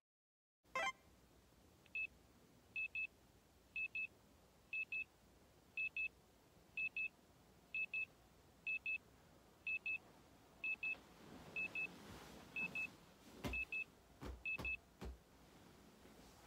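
Electronic alarm beeping in quick pairs of high tones, about one pair a second: a wake-up alarm going off, which stops after about fifteen seconds. Near the end, bedding rustles and a few dull thumps come from someone stirring under a duvet.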